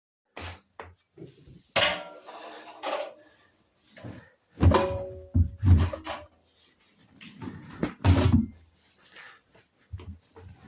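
A run of irregular clunks, knocks and scrapes of plastic and metal being handled, with the heaviest clunks about five and eight seconds in, fitting the loading and shutting of the detergent drawer on a Hoover washer-dryer.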